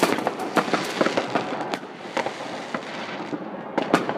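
Fireworks going off all around: a rapid, irregular run of sharp bangs and crackling. It is densest at first, thins out in the middle, and ends with a few louder bangs.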